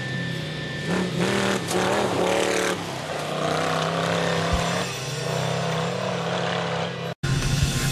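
Off-road race truck engine running hard, its pitch rising and falling as it revs through acceleration. The sound cuts out for an instant near the end, then picks up again.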